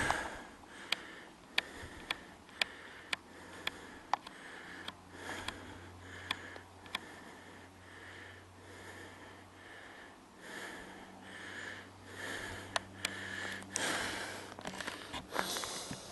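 Breathing and sniffing through the nose close to a handheld camcorder's microphone, in soft repeated swells. A run of small sharp clicks, about two a second, comes in the first few seconds, and there is a patch of rustling near the end.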